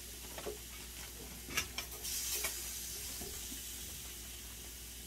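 Thin-sliced marinated beef sizzling steadily on a tabletop electric grill, with a few light clicks and scrapes of a utensil on the grill plate. The sizzle flares up for about half a second around two seconds in.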